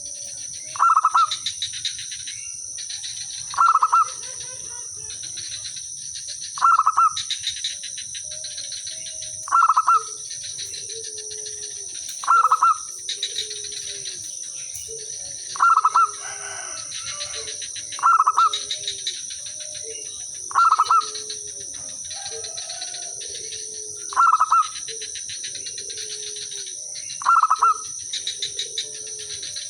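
Zebra doves calling. A loud, short cooing phrase repeats about every three seconds, and from about ten seconds in a quieter, lower cooing from other doves answers between the phrases. A steady high insect drone runs underneath.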